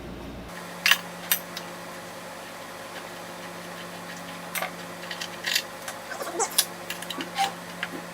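Irregular sharp metallic clicks and clinks of hand tools and loosened parts as bolts are undone on a metal lathe's guard assembly, over a steady low hum.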